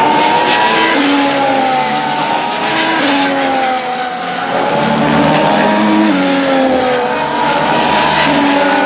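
2025 Formula 1 cars' turbocharged V6 hybrid engines running at speed on track. Several cars are heard at once, their engine notes sliding down and back up again and again.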